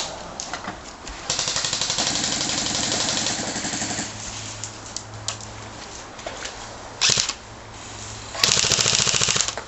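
Airsoft rifle firing on full auto: a long rapid burst of about two and a half seconds, a short burst later, and another rapid burst near the end.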